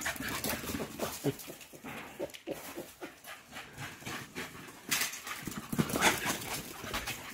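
Black Patterdale terriers playing rough together, chasing and scuffling: quick irregular scrabbles and clicks with dog vocal noises mixed in, loudest about five to six seconds in.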